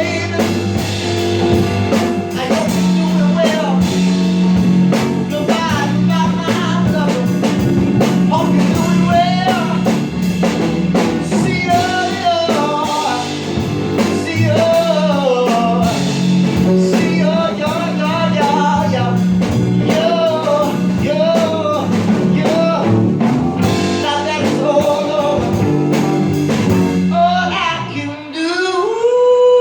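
Live blues-rock jam on electric guitar, bass and drums, the lead playing bent, sliding phrases over a steady bass line. Near the end the band drops away and a single note glides up and is held.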